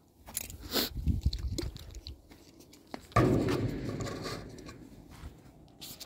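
Handling noises: a few sharp clicks and knocks, then a sudden louder scraping crunch about three seconds in that dies away over a couple of seconds.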